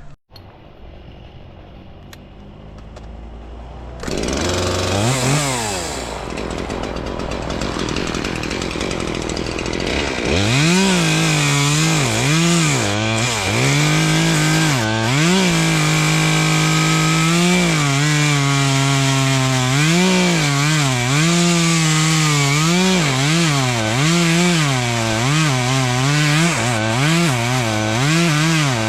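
Gas chainsaw cutting branches: it comes in about four seconds in, and its engine revs up and falls back again and again under the throttle, held high through a longer cut in the middle.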